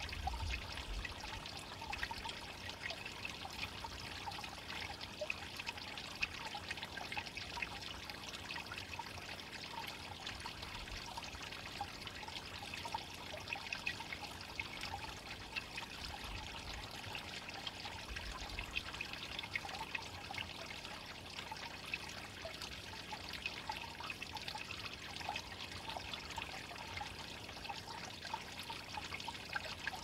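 A valley stream's water flowing and trickling steadily.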